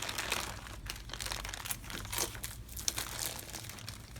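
Plastic bag crinkling and rustling as it is handled and opened, an irregular run of crackles.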